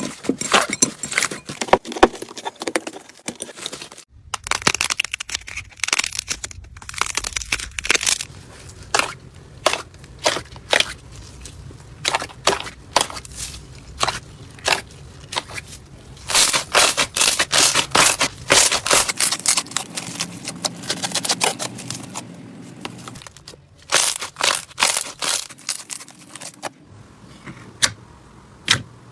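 Slime being squeezed, poked and stretched by hand, giving dense runs of wet crackling and clicking pops. The texture shifts every few seconds from one stretch to the next.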